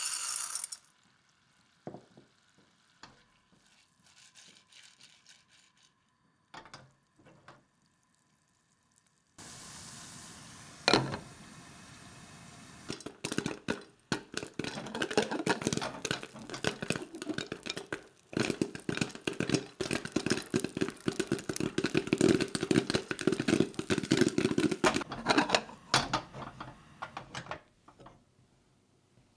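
Popcorn kernels pouring into a pot of melted butter and oil, then a steady sizzle of heating fat and a knock as the glass lid goes on. From about thirteen seconds in the corn pops fast and densely under the lid, thinning out near the end.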